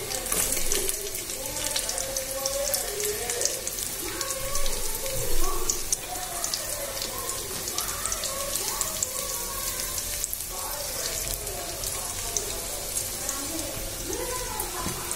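Chopped onions sizzling in hot oil in a kadai, a steady crackling hiss.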